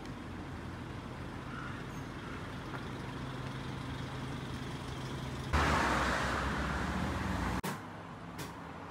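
Road traffic: a steady engine hum, then a little over halfway a sudden loud rush of a large vehicle passing close, which cuts off abruptly near the end. A quieter stretch with a few faint clicks follows.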